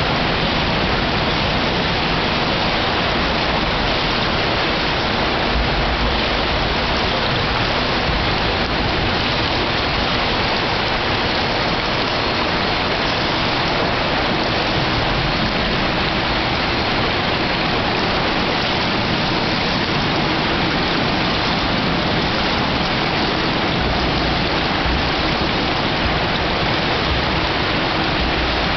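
Steady rushing water noise of an indoor swimming pool.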